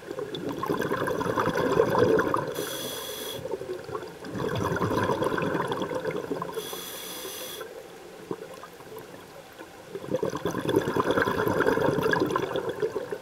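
Scuba diver breathing through a regulator underwater: two short hissing inhales through the demand valve, about 3 and 7 seconds in, between long rushes of bubbling exhaust as each breath is let out.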